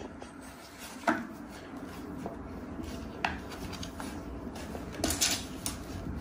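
Kittens playing at a sisal-rope scratching post in a wire pen: a few sharp clinks and knocks, the loudest about a second in, and a brief scratchy rustle near the end.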